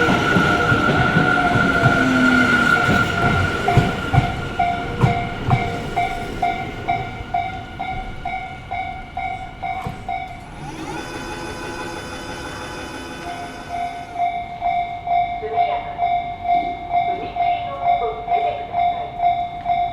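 Japanese level-crossing warning bell clanging at about two strikes a second while a Tobu Tojo Line electric train passes, its wheels knocking over the rail joints under a steady whine. The bell stops for a few seconds about halfway through, when a faint steady hum of many tones is heard, then starts clanging again.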